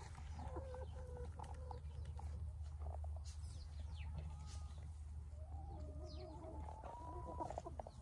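Domestic hens clucking softly and murmuring as they forage, with scattered light clicks of pecking and scratching in dry leaves, over a steady low rumble.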